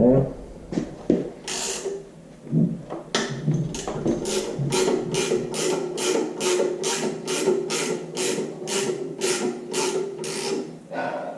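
Ratchet mechanism clicking in a steady rhythm, about two strokes a second, after a few loose metallic knocks; it stops shortly before the end.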